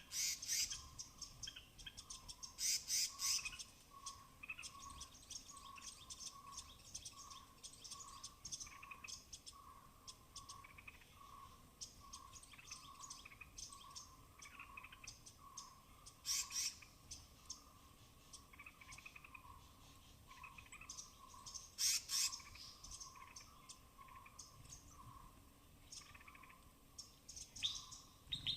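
Small forest animals calling: a short note repeated steadily about twice a second, overlaid with quick high-pitched chirps and a few louder sharp chitters, about half a second, three, sixteen and twenty-two seconds in and near the end.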